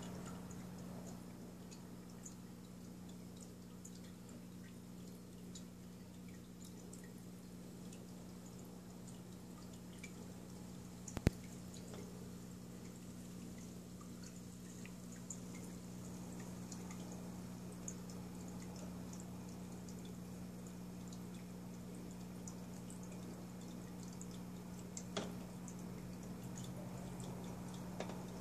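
Aquarium equipment running with a low steady hum, with faint dripping water and scattered small ticks; one sharp click sounds about eleven seconds in and a softer one near the end.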